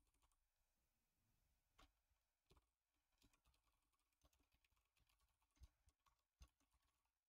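Very faint computer keyboard typing: scattered single key clicks with near silence between them, the two loudest about a second apart near the end.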